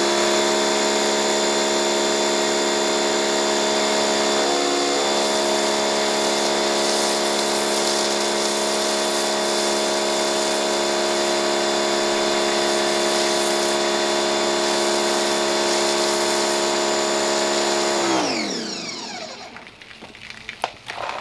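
Pressure washer pump motor running steadily, with the hiss of spray through a foam cannon as foaming wash goes onto the vehicle. About 18 seconds in the motor winds down and stops.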